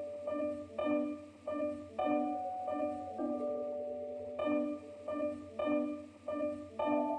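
Background piano music: chords and notes struck in a steady rhythm, each ringing and fading before the next.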